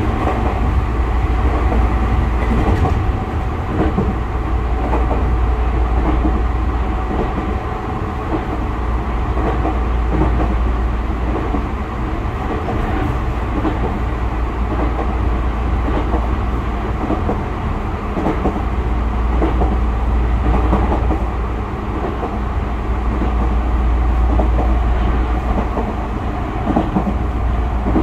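Tokyu 5000 series electric train heard from inside a passenger car while running at speed: a steady heavy rumble, wheels clacking over rail joints at irregular intervals, and a few steady high tones over it.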